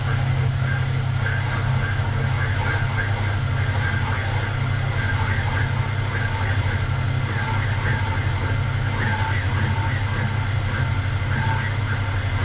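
A valve-seat cutting machine runs with a steady motor hum while its cutter cuts a hard exhaust valve seat, making an uneven chattering as it chops at the seat. The unevenness comes from the seat being out of true, so the cutter is cutting more on one side than the other.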